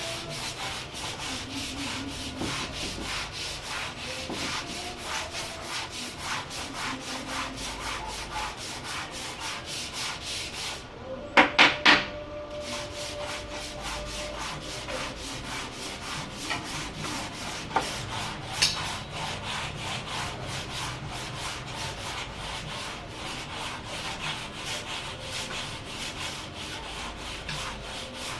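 Wood being hand-sanded on a door in quick, even back-and-forth strokes, about three a second. A little under halfway through the sanding pauses for three sharp knocks, then goes on, with a couple of light clicks later.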